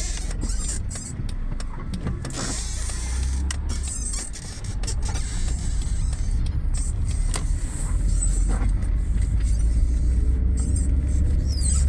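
Backhoe's diesel engine running with a steady low rumble that grows louder about halfway through, with scattered sharp knocks.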